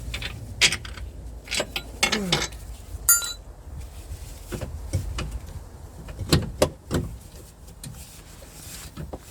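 Irregular metallic clinks, taps and knocks of hand tools and metal parts being handled during work on a car's steering, with one short ringing metal chink about three seconds in.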